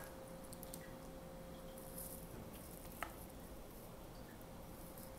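Faint handling sounds of a cookie scoop depositing a portion of dough onto a parchment-lined baking tray, with one light click about three seconds in, over a faint steady hum.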